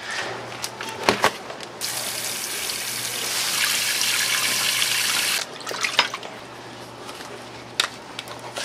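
Water running from a tap for about three and a half seconds, turned on and off abruptly, with knocks and clatter of handling before and after.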